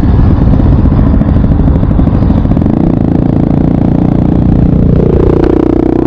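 Motorcycle engine running while riding, over steady wind and road rumble. The engine note steps up in pitch about five seconds in and holds at the higher pitch.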